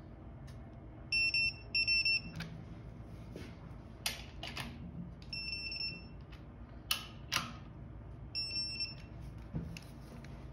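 Digital torque wrench beeping, four short bursts of high-pitched beeps, as bolts are brought to their set torque; the beep signals that target torque is reached. Sharp metallic clicks come between the bursts.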